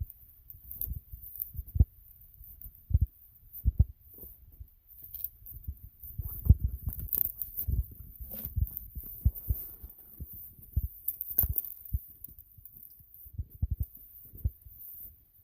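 Snowshoe footsteps in snow: irregular low thuds with occasional crunches.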